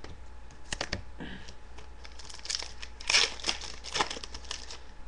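Trading-card packs and cards being handled: short crinkling and rustling strokes of a foil pack wrapper and cards, with a few sharp clicks about a second in and denser crinkling in the second half.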